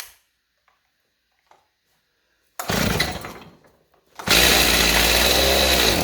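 Stihl MS290 two-stroke chainsaw pull-started, firing briefly about two and a half seconds in, then running for about two seconds and winding down. It is starving for fuel: the tank is empty.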